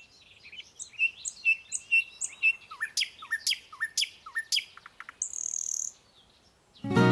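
Small birds chirping: a busy run of sharp high chirps and short rising whistles, with a brief high buzzy trill a little after five seconds. Acoustic guitar music starts right at the end.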